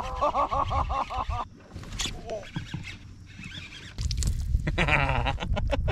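Anglers laughing and hollering in excitement over a hooked fish, in two loud outbursts, the second about four seconds in. Wind rumbles on the microphone throughout.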